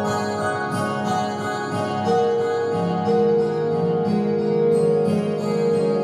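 Instrumental background music: pitched notes over a steady lower accompaniment, with a higher held note coming in about two seconds in and repeating.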